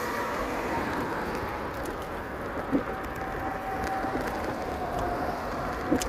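Steady wind and road noise from riding a bicycle, with a few light clicks and a faint thin whine in the second half.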